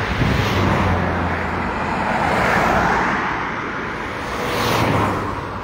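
Road traffic passing close by on a highway, tyre and engine noise. It swells and fades twice, with one vehicle passing about halfway through and another near the end.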